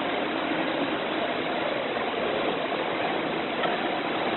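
Steady rushing background noise of an indoor swimming pool hall, with no distinct knocks or clicks.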